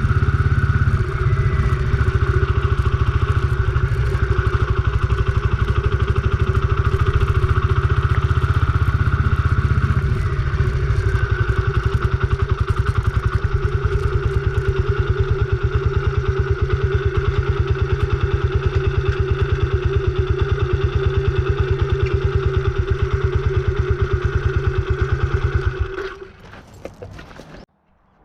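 Kawasaki Estrella single-cylinder motorcycle engine running steadily with an even, rapid pulse. It cuts off abruptly near the end.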